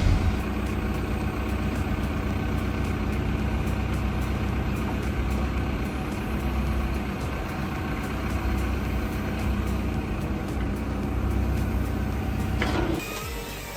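Heavy machine's engine running steadily under load, a low, even drone.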